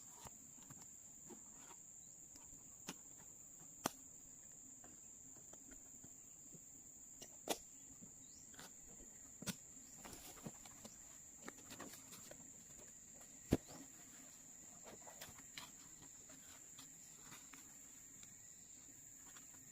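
Faint, steady high-pitched insect shrilling, likely crickets. Sharp clicks or snaps come every few seconds; the strongest is about 13 seconds in.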